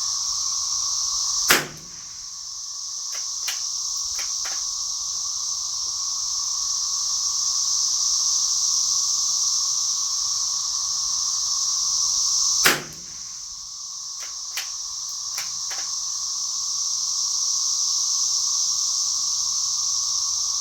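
Two .22 LR rifle shots about eleven seconds apart, each followed by a few small metallic clicks, over a steady, high-pitched cicada chorus.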